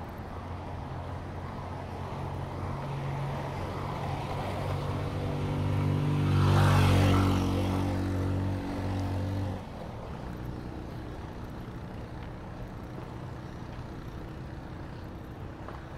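A motorcycle and a car pass close by on the road. The engine hum builds to a peak about seven seconds in, then drops away suddenly after about nine and a half seconds, leaving a low steady hum of traffic.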